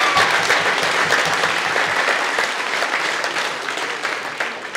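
Crowd applauding, many hands clapping at once, dying away towards the end.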